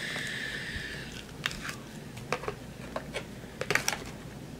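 Eating a frozen fried-chicken dinner: a series of sharp clicks and crunches, grouped tightest near the end, after a soft hiss that fades in the first second.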